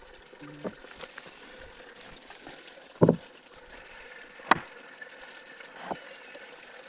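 Sharp knocks, the loudest about three seconds in, followed by two more about a second and a half apart, over a faint steady hiss.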